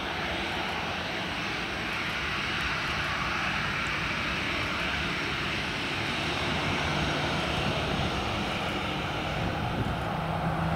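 Twin jet engines of a Ryanair Boeing 737 running steadily as the airliner moves along the runway, a dense rushing noise over a low rumble that grows a little louder near the end.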